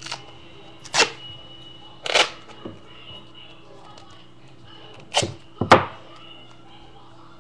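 Adhesive tape being pulled off in about five short rips, the loudest near the end.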